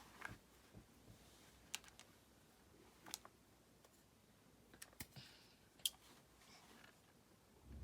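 Near silence with a handful of faint, irregular clicks and taps.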